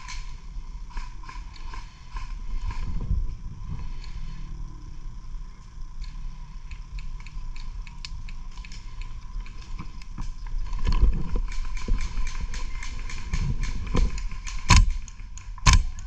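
Irregular clicking and knocking of an airsoft player's gear and footsteps on the move, with two loud sharp cracks about a second apart near the end.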